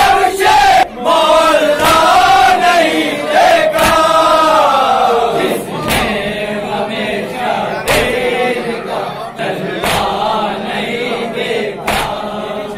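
A group of men chanting a salaam, a Shia mourning recitation, in unison. Sharp strikes of hands on chests (matam) keep the beat about every two seconds.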